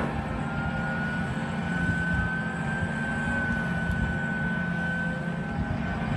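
Caterpillar hydraulic excavator's diesel engine running steadily under load as it digs soil with its bucket, with a steady high whine coming in about half a second in over the low engine rumble.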